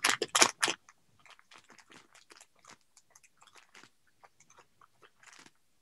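Crinkling and rustling of a crochet kit's packaging being opened and handled: a few louder crackles in the first second, then a run of faint crinkles and clicks.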